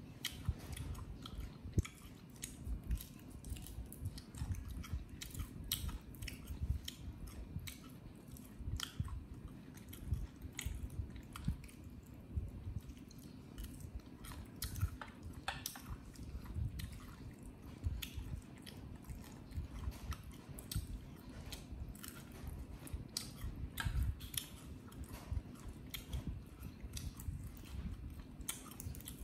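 Chewing and eating close to the microphone: an uneven run of short sharp clicks and mouth sounds over a low rumble.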